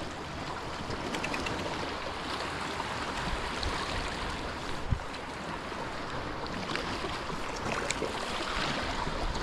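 Sea waves washing against the shore with wind, a steady rushing hiss; a soft thump about halfway through.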